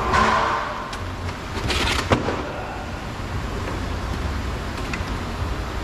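Plastic door trim panel being handled at the door, with a short scrape and a sharp click about two seconds in, over a steady low hum.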